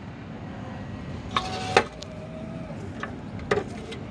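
Clicks and clunks from a vending machine's automatic delivery compartment, with a short whine between two sharp clicks about a second and a half in and another click a couple of seconds later, over steady background noise.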